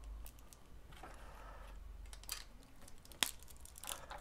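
Plastic LEGO Technic parts handled and pressed together: faint rubbing and a few short clicks, the sharpest about three seconds in.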